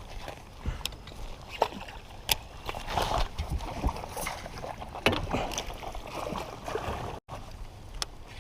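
Water splashing and sloshing around a kayak with scattered sharp knocks and clicks, as a hooked fish is fought and brought to the boat on a short line.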